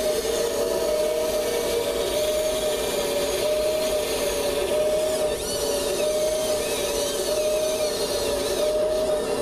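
Electric servos and motors of a Kabolite 970 all-electric RC excavator whining steadily as it works the arm, with a wavering mid-pitched motor tone over a gear-noise hum.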